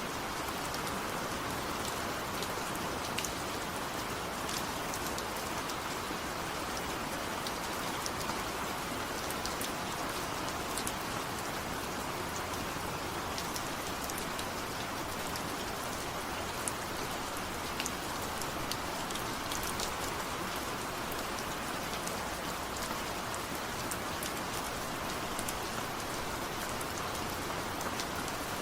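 Steady rain falling, with scattered individual drops ticking over it.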